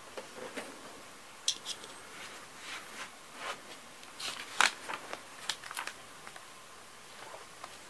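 Light clicks and rustles of small objects being handled, scattered and irregular, with a sharper click a little past four and a half seconds in.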